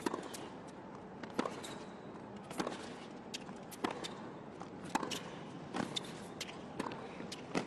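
Tennis rally on a hard court: sharp pops of racquet strikes and ball bounces, about one a second, over a low crowd hush.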